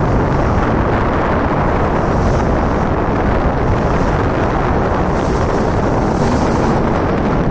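Steady wind rush on the microphone, mixed with water rushing along the hull of a moving boat.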